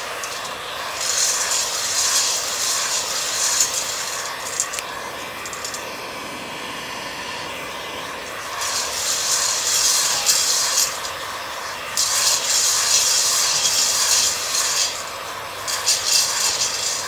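Heat gun blowing hot air into a stainless steel bowl of roasting coffee beans. Its hiss swells and eases every few seconds, and a few sharp pops of beans at first crack stand out.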